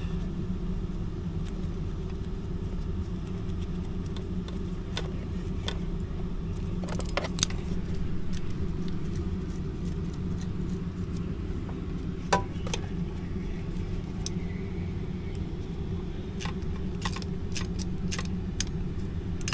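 Scattered small metallic clicks and taps of pliers on a brass air-line fitting and nut as it is tightened, over a steady low mechanical rumble.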